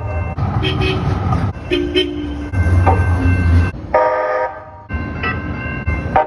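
Calgary Transit CTrain light-rail trains sounding their bells and horns in quick succession over the rumble of the trains: several short toots and strikes, a longer horn blast about four seconds in, and two quick strikes near the end.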